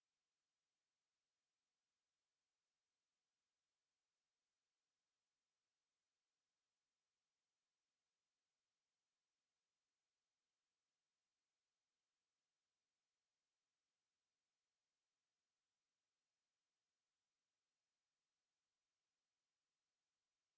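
A pure 11932 Hz sine test tone, one steady high-pitched whistle at an unchanging level, used to test speakers and to vibrate water and dust out of them.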